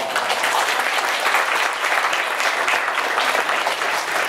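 Audience applause, breaking out suddenly and staying steady.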